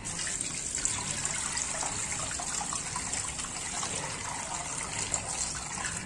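Water pouring in a steady stream from a jug into an aluminium pressure cooker, splashing onto the beef trotters and into the pot, stopping near the end.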